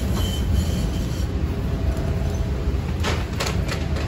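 MBTA Type 9 Green Line light rail car running along the track: a steady low rumble from its wheels and running gear, with faint wheel squeal in the first second and a few sharp clacks about three seconds in.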